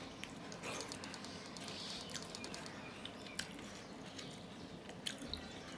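Close-miked eating sounds from rice and fish curry eaten by hand: wet chewing and lip smacks, with scattered sharp clicks and a few short squeaky ticks. Fingers squish the rice and curry on the steel plate.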